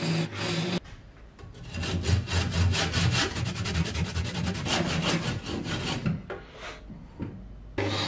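A Stayer Cobra hand saw cuts through a blank of glued coloured pencils in quick, even back-and-forth strokes for a few seconds. At the very start and again near the end, a lathe gouge is cutting the spinning wooden blank.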